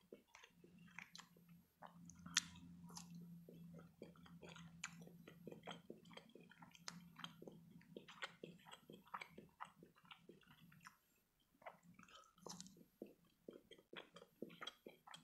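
Close-miked chewing of imitation crab sticks: soft, wet mouth clicks and smacks that come thick and fast, with a brief lull about two-thirds of the way through. A low steady hum runs under the chewing for much of the time.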